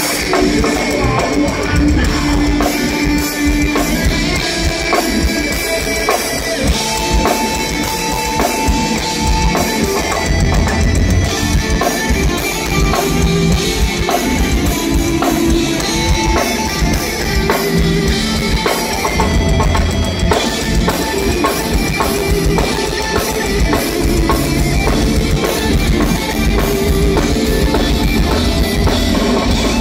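Thrash metal band playing live at full volume: distorted electric guitars over a drum kit with fast, driving bass drum and snare.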